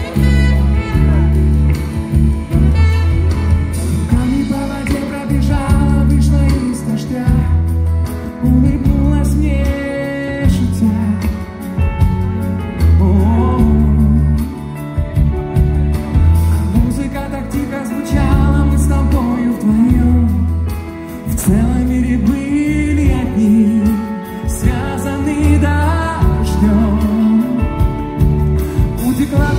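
A male vocalist singing a ballad live into a microphone over loud amplified backing music with a strong, regular bass line.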